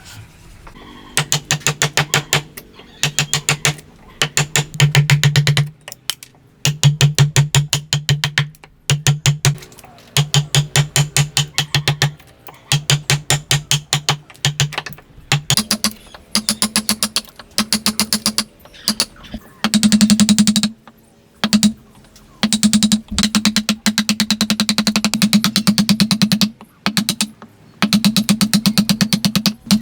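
Hand tool working wood in bursts of rapid, evenly spaced strokes, each burst a second or two long with short pauses between, carrying a steady ringing pitch that steps higher about halfway through.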